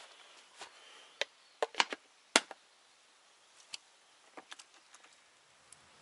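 Irregular sharp knocks and clicks, a cluster of them about two seconds in with the loudest among them, and a few quieter ones later.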